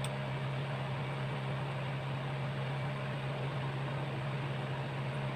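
Steady low hum over a faint even hiss: the background noise of the room, with a tiny click right at the start.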